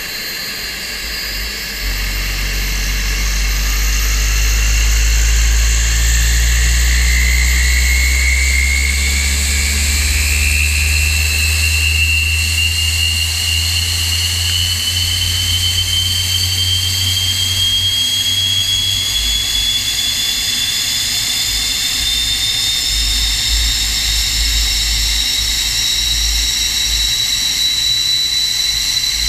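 SEPECAT Jaguar's Rolls-Royce Turbomeca Adour turbofan running on the ground, its whine climbing slowly and steadily in pitch as the engine spools up. A low rumble comes in about two seconds in and fades away over the middle of the stretch.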